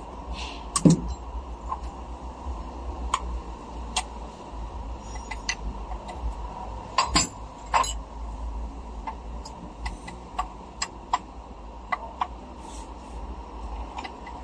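Scattered metallic clinks and taps of hand tools against metal parts, a dozen or so irregular strikes with the sharpest just under a second in and around seven to eight seconds in, over a steady low hum.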